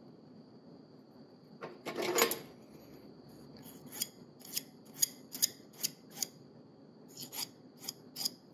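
A piston ring's end being ground on a hand-cranked ring filer's abrasive wheel: one longer rasping scrape about two seconds in, then a run of short, sharp scrapes about two a second, with a few more near the end.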